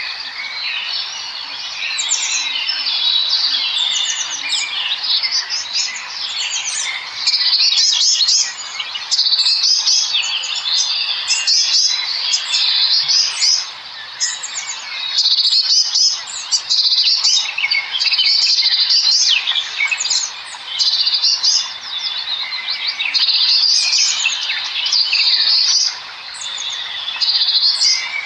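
A dense chorus of many small birds chirping and chittering at once, with short calls and trills overlapping, swelling in louder bouts of a second or two every few seconds.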